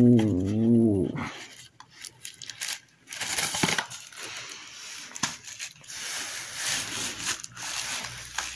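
A drawn-out vocal sound in the first second, then cardboard box flaps and thin plastic wrapping crinkling and rustling with small clicks as a selfie stick is pulled out of its box by hand.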